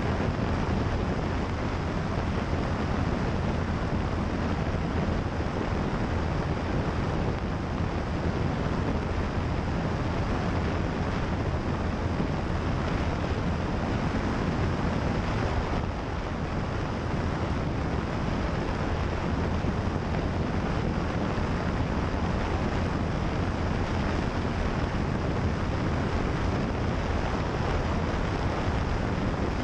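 Single-engine light propeller aircraft in flight: a steady drone of engine and propeller mixed with heavy wind rush over a camera mounted outside the airframe.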